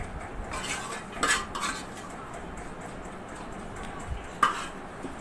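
A metal spoon scraping and clinking against a metal cooking pot a few times, the loudest knock near the end, as chicken pieces and gravy are spooned over cooked rice.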